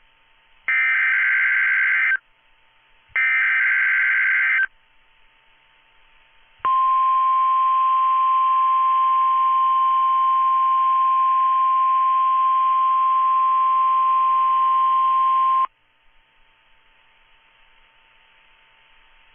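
NOAA Weather Radio SAME header data bursts: two harsh electronic warbling bursts, each about a second and a half long, with a short pause between. After a longer pause comes the steady 1050 Hz warning alarm tone, held for about nine seconds, then only faint radio hiss. This is a weekly test of the warning alarm and the area-coded alert system.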